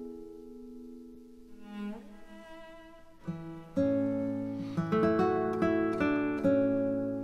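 Background instrumental music on plucked strings: a held chord fades away, then a new phrase of plucked notes with a low bass note comes in about halfway through.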